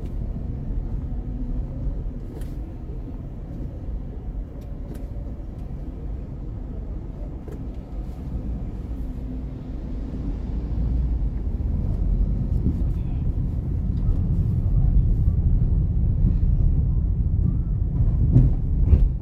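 Road and tyre rumble inside a moving Chevrolet Onix turbo, getting louder about two-thirds of the way through. A few sharp light knocks come through, the loudest near the end. These match the suspension noise the car makes over holes and patched pavement.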